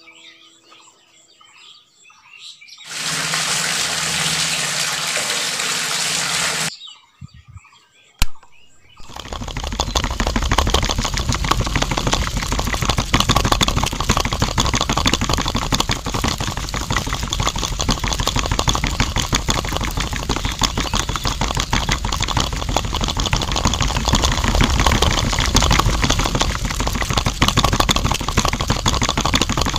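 Small electric motor of a toy-sized DIY concrete mixer starts about nine seconds in and runs on with a fast, steady rattling buzz as the drum churns the wet cement mix. Before it come a few seconds of loud hiss, like material being poured in, and a single sharp click.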